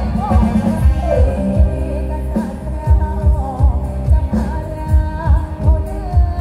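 A song with a singing voice and a heavy bass beat, played loud through large speaker-cabinet stacks of a mobile sound system.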